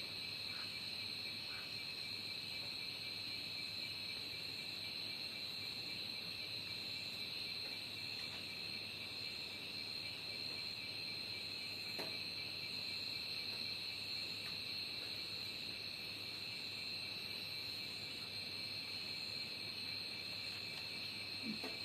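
Steady insect chorus: two unbroken high-pitched tones, with one faint click about halfway through.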